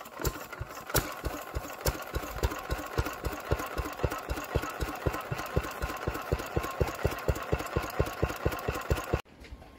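Lister B single-cylinder stationary engine running steadily, its firing beats coming evenly and quickly. The sound cuts off suddenly about nine seconds in.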